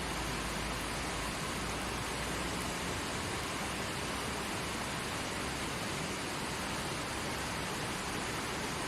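Mountain river flowing over rocks, a steady rushing of water.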